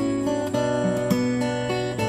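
Background music: an instrumental guitar piece with plucked notes changing every fraction of a second.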